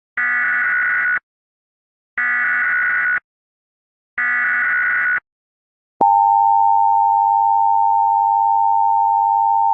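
Emergency Alert System opening tones. First come three one-second stretches of the SAME header's rapid warbling data tones, a second apart, which encode the alert. Then, from about six seconds in, the steady two-tone attention signal that precedes the spoken warning.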